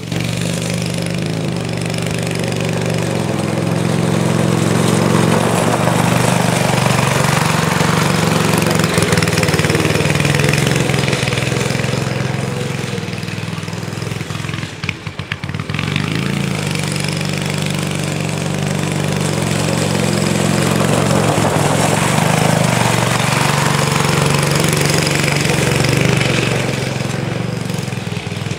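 Small go-kart engine running steadily, growing louder and fainter as the kart comes near and moves away, with a brief drop about halfway through.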